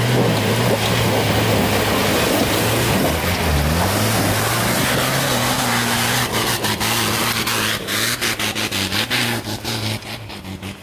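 Off-road 4x4 engine running under load, its pitch rising as it revs up about four seconds in, over a steady rushing noise. A rapid run of clicks and knocks comes in the second half.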